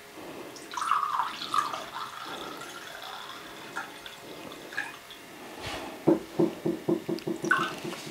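Red wine poured from a glass bottle into a stemmed glass, splashing as the glass fills. Near the end it gives a quick run of glugs as the bottle's flow breaks up.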